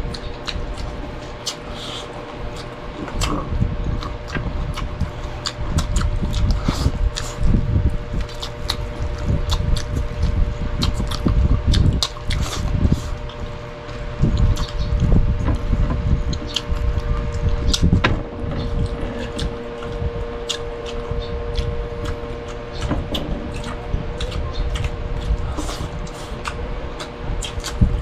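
Close-miked eating sounds: chewing and mouth smacks, with many short sharp clicks, over a steady hum.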